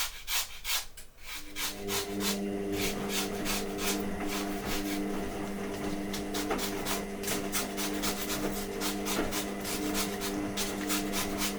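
Wad of tissue scrubbed back and forth over the sticky adhesive left on a 3D-printer build sheet, in quick repeated rubbing strokes as the glue balls up into a blob. A steady hum of several tones comes in about two seconds in.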